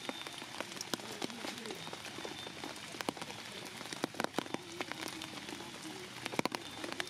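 Steady rain falling, with frequent sharp drop hits close by.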